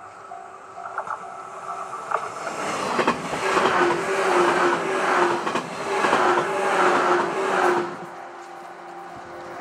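A 115 series electric train passes at speed: a loud rushing run with the wheels clicking over rail joints, which cuts off abruptly about eight seconds in. A level-crossing warning bell rings in a steady beat of about two strokes a second throughout.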